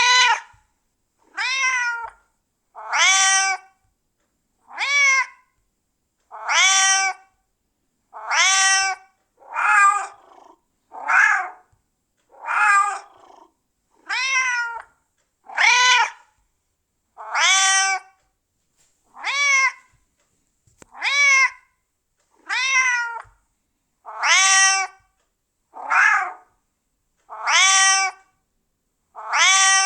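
Domestic cat meowing over and over, one short meow about every second and a half, with clean silence between the calls.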